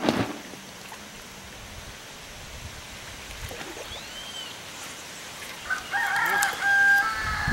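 A rooster crowing near the end, a broken call ending in a long held note. A brief thump right at the start, and a few faint small-bird chirps in between.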